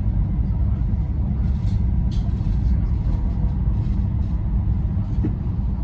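Steady low rumble of a high-speed train running, heard from inside the carriage, with a few faint ticks.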